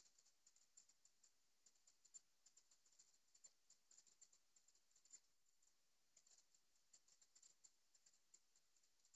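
Near silence, with faint, irregular high ticks scattered throughout.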